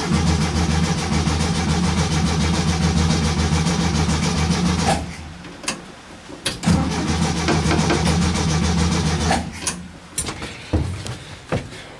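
A 1967 VW bus's starter cranking its air-cooled flat-four engine in two long, steady tries, about five seconds and then about three seconds, without the engine firing. The owner suspects dirty ignition points. A few short clicks come between and after the tries.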